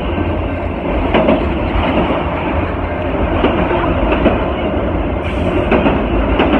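Freight train of autorack cars rolling past close by: a steady rumble of steel wheels on rail, broken by irregular clacks as the wheels cross rail joints.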